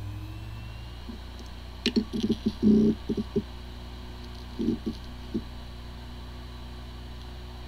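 Hard disk drive with corrupted disk firmware spinning with a steady whine and hum, its rising spin-up tone levelling off about a second in. Its heads give a sharp click and short bursts of ticking and chatter from about two to three and a half seconds in, with a few more near five seconds. It sounds like a healthy drive, though a computer cannot detect it.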